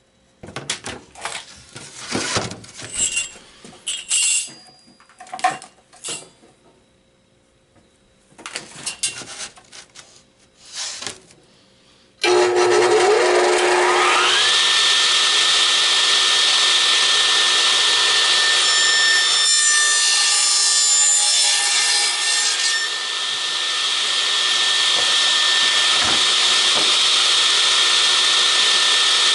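A few knocks and clatter of wood being handled, then about twelve seconds in a radial arm saw is switched on. Its motor whine rises over a couple of seconds as the blade spins up, and it then runs on loudly and steadily with a high tone.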